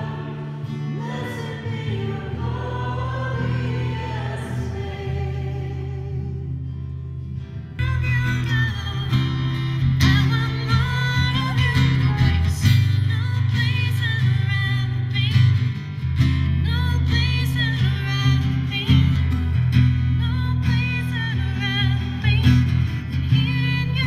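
Worship music: voices singing with guitar. The sung notes are held at first, and about eight seconds in it gets louder, with strummed guitar under the voices.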